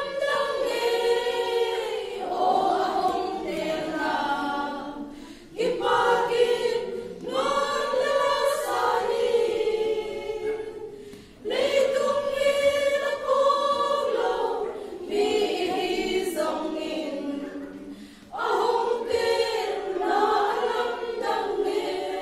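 Women's choir singing a hymn unaccompanied, in phrases of about six seconds with short breaks for breath between them.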